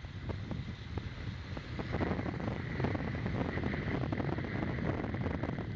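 Wind buffeting the microphone of a bicycle-mounted camera riding on a rain-soaked road, with tyre hiss, water spray and small crackles from the wet surface. It gets louder about two seconds in.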